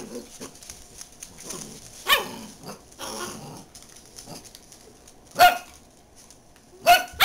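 Dachshund barking: a few short, sharp barks, one about two seconds in, one about five and a half seconds in, and two close together near the end.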